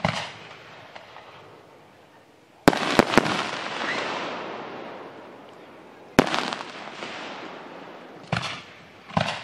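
Aerial fireworks shells bursting. A quick cluster of three sharp bangs comes under three seconds in and trails off slowly, followed by another bang about six seconds in and two more bursts near the end.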